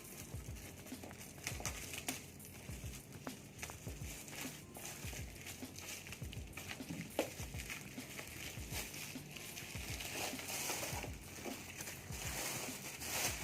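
Packaging being handled: plastic wrap crinkling and rustling, with scattered small clicks and knocks. The rustling grows thicker and louder near the end.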